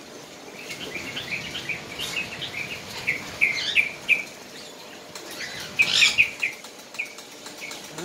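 Parakeets chirping: a string of short, high chirps, some in quick runs, loudest in a cluster about six seconds in.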